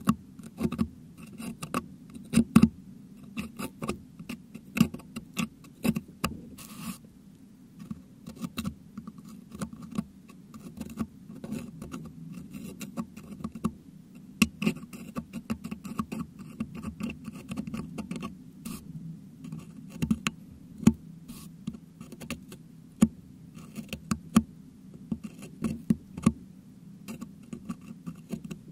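Metal dental hook picking and scraping crushed meringue out of a Blue Yeti microphone's metal grille, heard right on the mic. Irregular sharp clicks and scratches follow one another the whole time, over a low steady hum.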